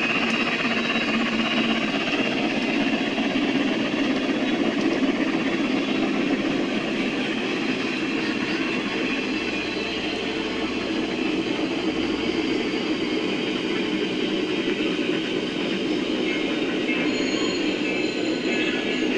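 G-scale model steam locomotive, Cumbres & Toltec No. 463, running along the garden railroad track with a steady running noise that does not change.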